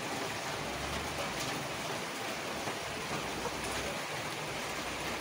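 Steady rain falling, an even hiss with no other clear event, and a faint low rumble about a second in.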